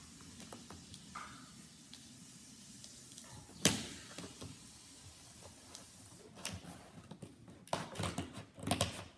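Handling noises from unboxing a Chromebook: one sharp knock a little over a third of the way in, then a run of taps and clatters near the end.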